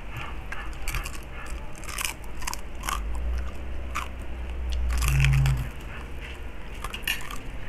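Close-up crunching and chewing of crispy deep-fried pork leg skin (crispy pata crackling): a run of sharp, irregular crunches. A brief low hum about five seconds in is the loudest part.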